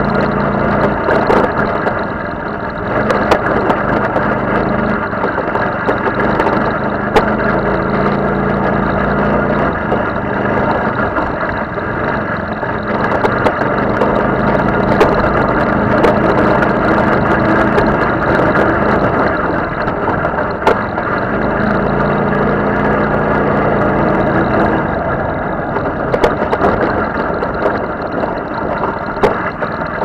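Off-road buggy engine running under load, heard on board, its note rising and falling as it is driven along rough tracks. Scattered sharp knocks and rattles run through it.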